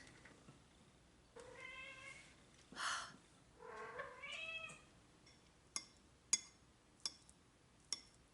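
A pet cat meowing twice, once about a second and a half in and again around four seconds in, with a short breathy sound between the calls. A few sharp clicks follow near the end.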